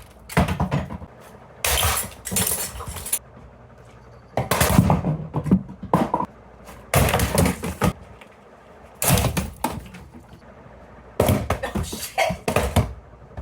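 Six loud smashing, clattering crashes, each lasting a second or so, with short quieter gaps between them: objects thrown into a running industrial ceiling fan, struck and flung by its blades.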